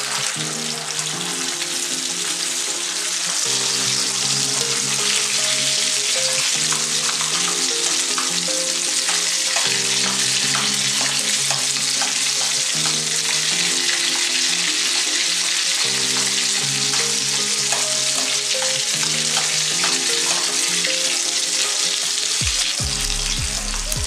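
A whole marinated tilapia shallow-frying in coconut oil, the oil sizzling steadily with scattered small pops and clicks, over soft background music.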